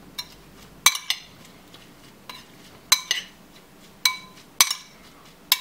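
Metal spoon stirring chopped tomatoes and herbs in a glass bowl, clinking against the glass: about nine short ringing clinks at uneven intervals.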